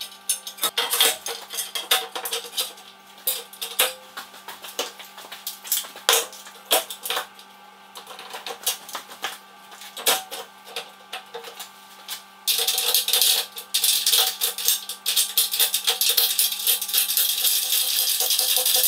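Scattered metallic clinks and knocks of aluminium router-sled rails and bar clamps being handled and fitted. About two-thirds of the way through, background music with a busy tambourine-like shaking rhythm comes in and grows louder than the handling.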